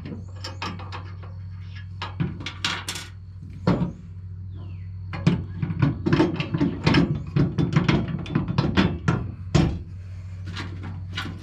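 Steel parts of a Harbor Freight ATV/lawnmower jack clanking and knocking as they are handled and fitted together: an irregular run of sharp clicks and knocks, busiest in the second half, over a steady low hum.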